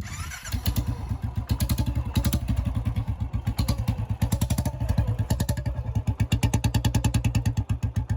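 Royal Enfield Classic 350's single-cylinder engine idling through an aftermarket bend pipe and the stock silencer, with an even, rapid beat of exhaust thumps.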